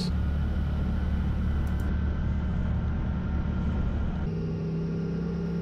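CFMOTO ZForce 800 side-by-side's V-twin engine running at a steady trail-cruising speed, a low, even drone. Its tone changes abruptly about four seconds in.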